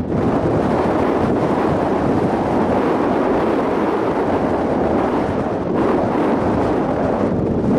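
Wind blowing across the microphone: a loud, steady noise with no distinct events.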